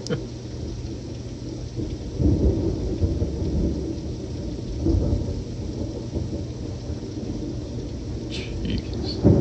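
Thunder from a supercell rumbling over steady rain, swelling twice, about two and five seconds in.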